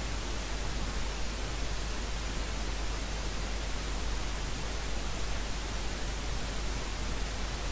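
Steady hiss of recording noise with a low hum beneath it, unchanging throughout.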